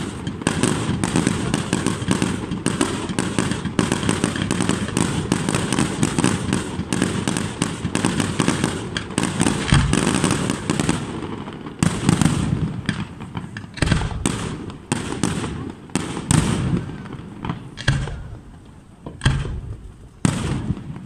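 Aerial fireworks shells bursting in a rapid, continuous barrage of bangs for about the first half. After that comes a string of separate bangs a second or two apart.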